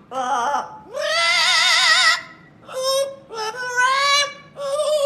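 A parrot singing a run of high, wavering notes with a strong vibrato, in several short phrases with the longest held for about a second.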